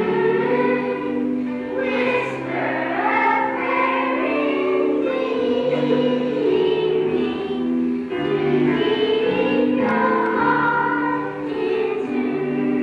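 Children's choir singing a song in unison, carried on without a break.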